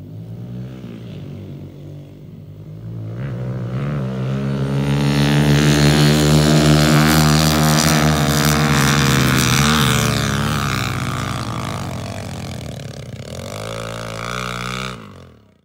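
Pit bike engines, one of them a Kawasaki KLX110, running as two bikes ride across a field and climb away up a dune. They grow louder over the first few seconds, are loudest around the middle with some rises and falls in pitch, then fade and cut off sharply near the end.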